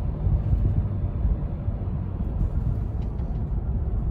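Steady low rumble of a moving car: road and engine noise while driving.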